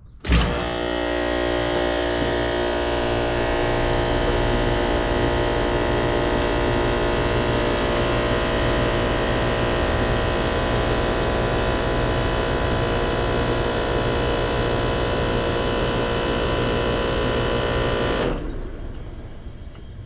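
Trane heat pump outdoor unit switched on: a sudden jolt at start-up, then the compressor runs with a loud, steady hum for about 18 seconds before dying away. It runs without tripping the breaker at once, so the fault is not a direct short.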